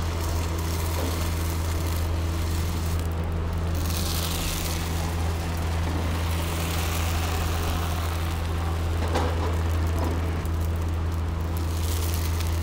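Steady low machine hum over a faint hiss. The hiss swells briefly about four seconds in and again near the end.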